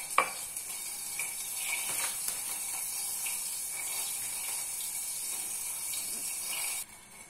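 Melted butter sizzling in a pan on the stove with grape molasses being added, a steady high hiss. A sharp click comes about a quarter second in, and the sizzle cuts off suddenly near the end.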